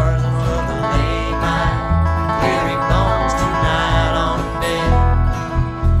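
Live band playing a country-style song on acoustic guitar and other plucked strings over a bass line.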